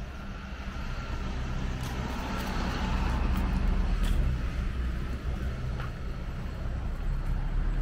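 Road traffic: a motor vehicle's engine and tyres passing, the rumble growing louder toward the middle.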